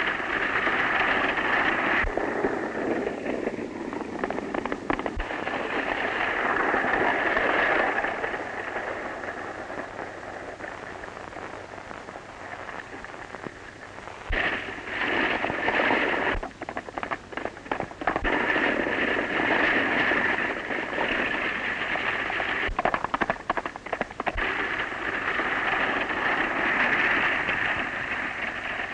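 Galloping horses and a buckboard rattling at speed over a dirt road, through the heavy hiss and crackle of an old optical film soundtrack. There are quick runs of clattering hoofbeats partway through.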